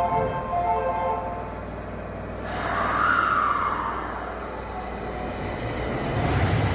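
Nagoya subway 5050-series electric train starting off from the platform: a platform chime ends about a second in, a whine swells and fades around three seconds in as the train starts moving, and a low running rumble builds near the end as it gathers speed. The uploader calls this running sound very strange.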